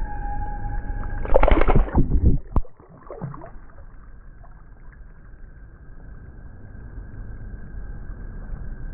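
A fish splashing hard at the water's surface as it kicks free of the hand on release: one loud burst of splashing about a second and a half in, lasting about a second, then quieter lapping water. A thin steady high tone sounds underneath throughout.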